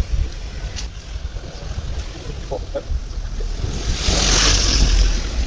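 Wind buffeting the microphone: an uneven low rumble, with a louder hiss building up about four seconds in.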